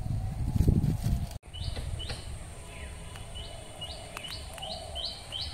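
A small bird chirping, a run of short high notes about two a second that starts about a second and a half in. Before that there is a low rumbling noise.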